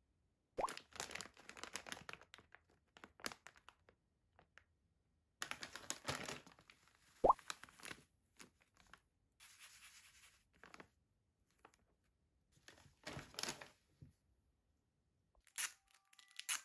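Plastic and foil packaging handled and crinkled: a stand-up foil drink-mix pouch, then a sticker sheet in its plastic sleeve. The rustling comes in four bursts, with two sharp clicks, the louder one about seven seconds in. Soft chime-like music starts just before the end.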